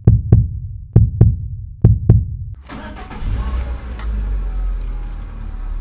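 Lada Largus engine cranking on the starter in sharp, regular pulses. About two and a half seconds in it catches and runs at a fast idle, the tachometer near 2000 rpm. This is the first start after its throttle body and air intake were cleaned to cure a low, stumbling idle.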